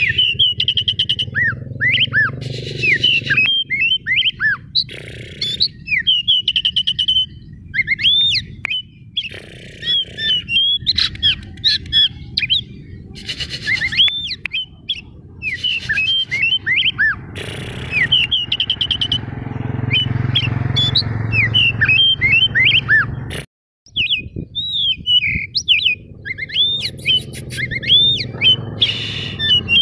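Oriental magpie-robin (white-breasted kacer) singing: rapid, dense runs of short, varied whistles, chirps and harsher squawky notes, delivered in quick phrases with brief gaps. The sound cuts out for a moment about three-quarters of the way through.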